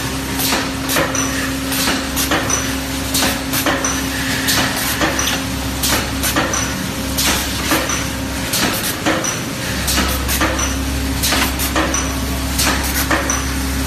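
Automatic aluminium foil container-making machine running: a rapid series of sharp metallic clanks and clicks in a regular working rhythm, over a steady mechanical hum.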